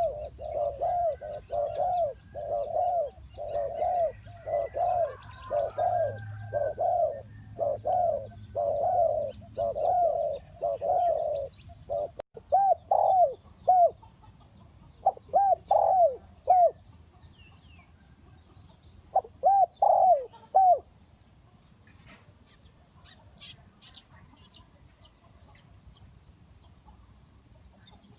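Spotted dove cooing: a long run of repeated low coo notes, about two a second, breaking off after some twelve seconds into a few shorter groups of coos that stop around twenty seconds in.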